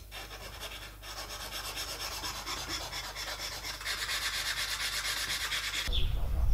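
Edges of CNC-cut wooden letters being hand-sanded, with a rapid back-and-forth rubbing hiss that gets louder about four seconds in and stops abruptly near the end.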